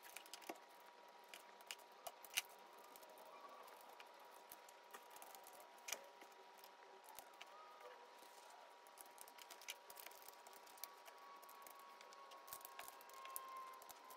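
Faint, scattered clicks and taps of LEGO Technic plastic beams and pins being handled and pressed into place, the sharpest about two seconds in. A faint steady high tone runs underneath.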